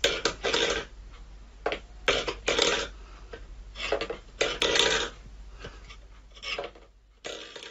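Stainless steel pet bowl pawed by a cat and scraped and knocked across a wooden floor, in a series of short, irregular scrapes and clanks.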